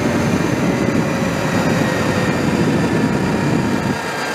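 Sur Ron electric dirt bike riding at speed: wind rushes over the microphone, and the electric motor's thin whine slowly falls in pitch.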